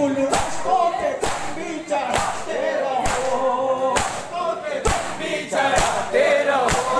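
A nauha (Shia lament) sung by a male reciter through a PA with the crowd of mourners singing along, kept in time by matam: the men striking their chests with their hands in unison, a sharp slap about once a second.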